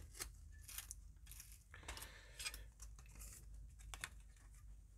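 Faint handling noises of a monitor's sheet-metal chassis and flat ribbon cables being moved by hand: light rustling and a few small clicks.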